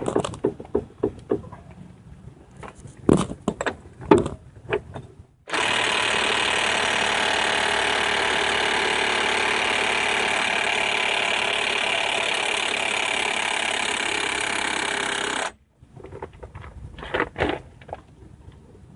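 Impact wrench running in one steady, even rattle for about ten seconds, starting and stopping abruptly, tightening down the pinion nut on a Dana 30 axle. A few clanks of tools and parts come before and after it.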